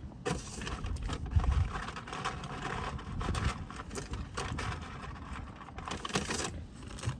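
Rustling and clicking handling noises close to the microphone, typical of food and its wrapper being handled while eating.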